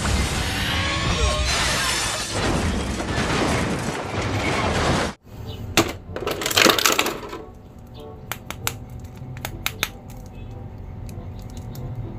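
A dense movie soundtrack of effects and music runs for about five seconds, then cuts off suddenly. Plastic toy packaging follows: a burst of crinkling, then scattered light clicks and taps as an action figure is handled.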